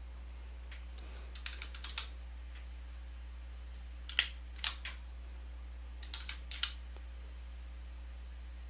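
Typing on a computer keyboard in a few short scattered runs of keystrokes, over a steady low hum.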